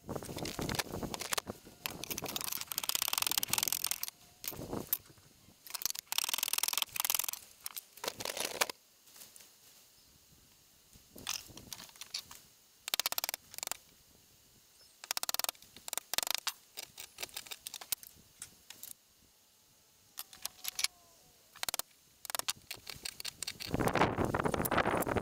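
Hand-tool woodworking at a bench: scattered knocks and clatter of wooden workpieces and tools, with several scraping stretches a second or two long, the loudest near the end, as a chisel pares the top end of a table leg clamped in a leg vise.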